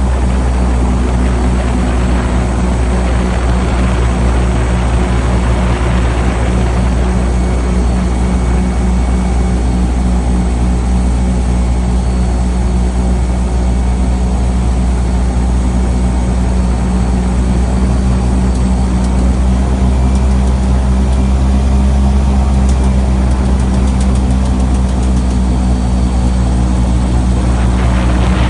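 Airboat's engine and propeller running steadily under way, a loud, unchanging engine note.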